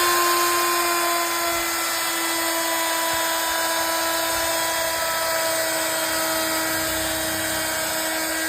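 Handheld electric wood router running steadily with a high-pitched motor whine, routing a wooden door frame.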